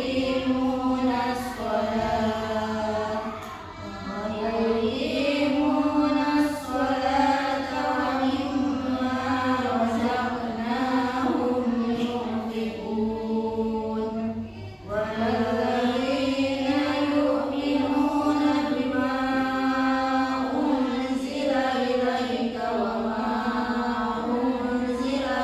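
A woman's voice chanting Qur'an verses in melodic recitation, with long held, wavering notes and short pauses for breath about 4 and 15 seconds in.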